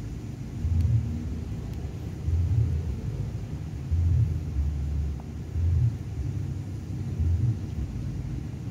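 Low, uneven rumble of wind buffeting the microphone, swelling and easing in irregular gusts.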